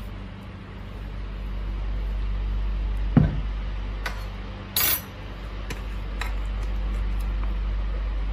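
Kitchen utensils and dishes knocking and clinking: one sharp knock about three seconds in, a short scraping rattle near five seconds and a few light clicks, over a steady low hum.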